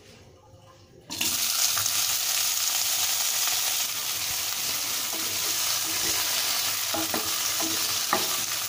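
Boiled potato, bean and carrot pieces tipped into hot ghee in a nonstick kadai, setting off a sudden loud sizzle about a second in that then runs on steadily. Near the end a wooden spatula starts stirring them, with a few light knocks.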